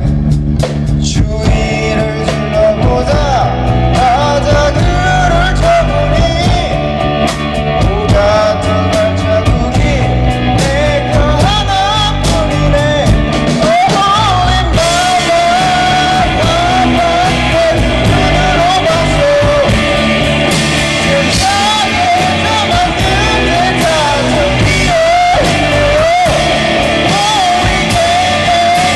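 Live rock band performing: a male singer over two electric guitars and a drum kit, played loud through amplifiers.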